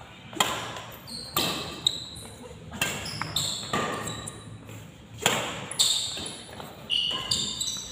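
Badminton doubles rally: rackets hitting a shuttlecock in quick, irregular exchange, about nine hits, each ringing on in the echoing hall, with short high squeaks of court shoes between them.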